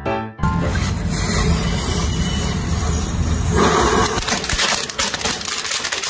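A lit firecracker hissing hard for about four seconds, then a rapid crackling as the burning ends.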